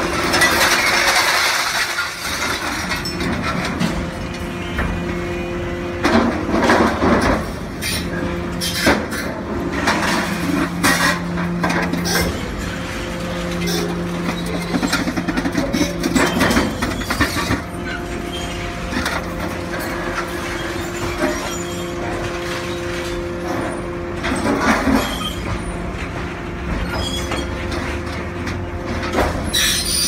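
Hydraulic scrap metal shear at work, with an excavator loading it: a steady machine hum runs throughout, and scrap steel clanks and crashes at irregular intervals as it is loaded and cut.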